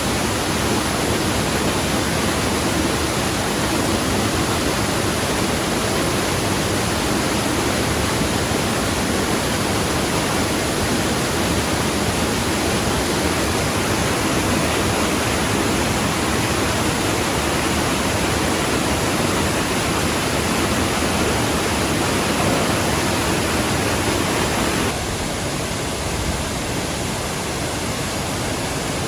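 Steady rush of water pouring over a waterfall, an even noise with no beat, which drops a little in level about 25 seconds in.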